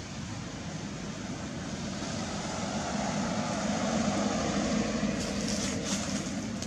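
Steady outdoor background rumble that swells and then eases over a few seconds, with a few short clicks near the end.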